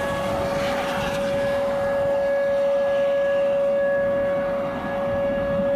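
Outdoor tornado warning siren sounding one steady, unwavering tone over a dense rushing noise. It signals a tornado emergency under way.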